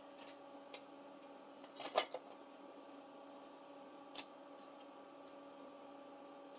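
Faint steady room hum with a few small handling clicks and taps on a tabletop: a short cluster of taps about two seconds in, the loudest, and a single click about four seconds in.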